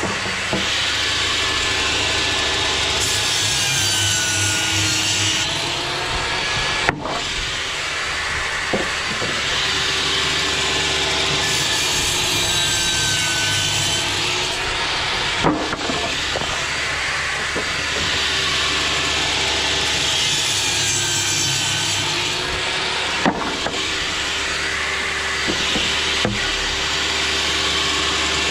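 Einhell table saw running steadily, its blade cutting through round wooden poles three times, with a fourth cut starting near the end; each cut brings a louder rasping whine. A single sharp knock follows shortly after each cut.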